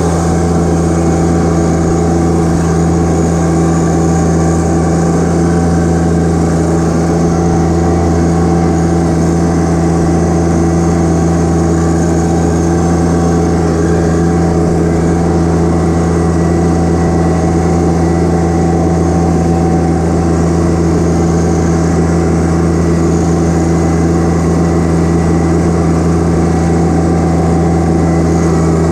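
John Deere 1025R compact tractor's three-cylinder diesel engine running steadily at an even speed as the tractor drives, heard close up from the operator's seat.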